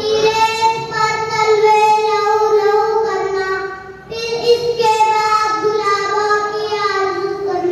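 A young girl singing in long held notes into a microphone, in two phrases with a short break for breath about four seconds in.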